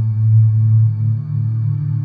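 Ambient background music: a sustained, steady low drone.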